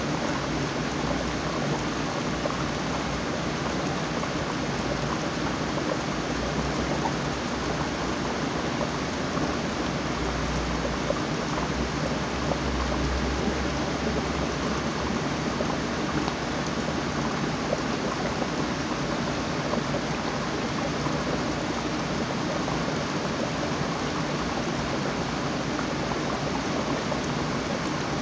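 Steady hiss of running water in a home aquarium, with a faint low hum underneath.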